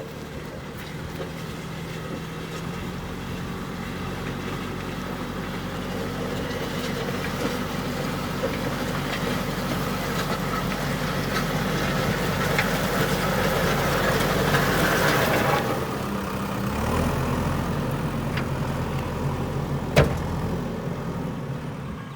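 JCB backhoe loader's diesel engine running while working, building louder with a rough rushing noise that cuts off about two thirds of the way through, then settling to a lower, steadier note. A single sharp knock near the end.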